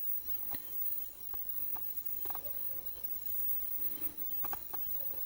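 A few faint, scattered clicks and light taps, two of them close together near the end, over a low steady hiss.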